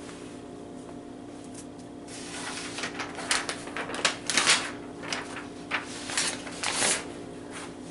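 Sheets of graph paper being handled and shifted, several short rustles from about two and a half seconds in until near the end, over a steady low hum.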